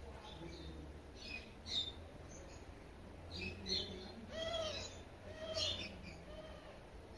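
Small birds chirping in short, high calls about once a second, with a longer, lower arched call about halfway through.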